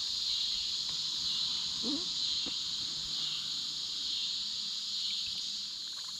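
Steady chorus of insects, an even high-pitched buzz, with a few faint clicks about one and two seconds in.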